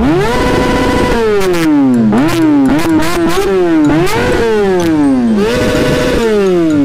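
Yamaha MT-09 inline three-cylinder engine with an aftermarket exhaust being revved while stationary: it rises quickly and holds at the top of the revs, falls away, gives a few short blips, then climbs and holds at the top twice more before falling.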